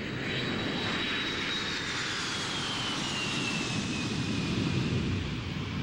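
Jet airliner passing: a steady rush of engine noise with a high whine that slowly falls in pitch.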